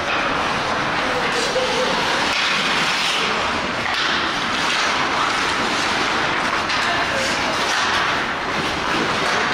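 Ice hockey game play: skate blades scraping the ice as a steady hiss, with voices calling out over it.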